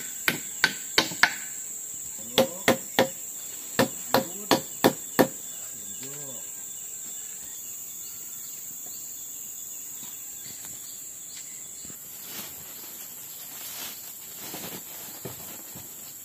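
Forest insects droning with a steady high buzz, while about a dozen sharp knocks, roughly three a second, come in quick groups during the first five seconds and then stop.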